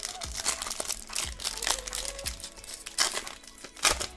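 Plastic wrapper of an Upper Deck Series 1 hockey card pack crinkling and tearing as it is ripped open by hand, a rapid run of crackles with a couple of louder rips about three and four seconds in.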